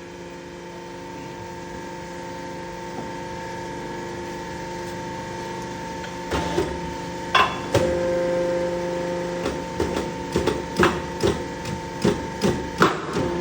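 A machine hums steadily while work is done on a construction machine's chain links. From about six seconds in, sharp metal clanks or hammer blows come more and more often; they are the loudest sounds.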